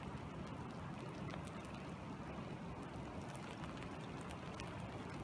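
Steady rain falling on open water and wet sand: an even hiss dotted with many small, sharp drop ticks.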